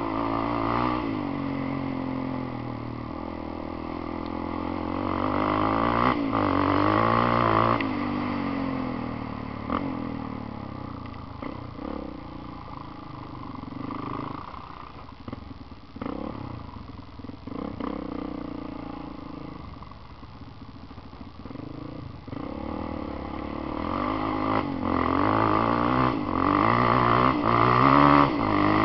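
Quad bike engine running under throttle on a dirt track, its pitch rising and falling as the rider works the throttle. It is louder and revving harder about six seconds in and again near the end, with a quieter stretch in between where knocks and rattles come through over the rough ground.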